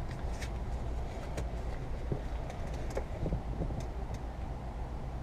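Rear-view mirror being fitted back onto its windshield mount: a few faint clicks and taps over a steady low rumble.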